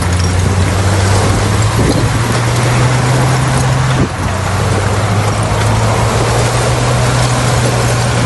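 Bulldozer's diesel engine running hard at a steady pitch over a dense rough noise. There is a brief dip in loudness about four seconds in.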